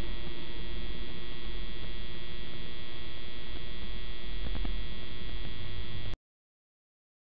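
Steady electrical hum and buzz over light hiss, the noise of a security camera's audio line, unchanged as the truck moves off. It cuts off abruptly into silence about six seconds in.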